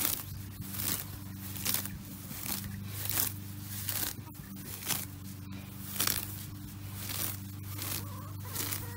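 Clover and grass being torn up by hand: repeated short rasping rips of stems pulling loose, about two a second.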